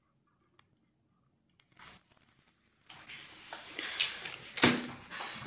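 Plastic wrapper being handled and torn open: near quiet with a few faint clicks, then about three seconds in a run of crinkling and ripping with sharp cracks, loudest about four and a half seconds in.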